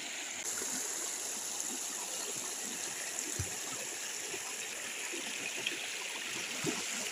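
Shallow, rocky river rushing over stones: a steady hiss of running water that grows brighter about half a second in.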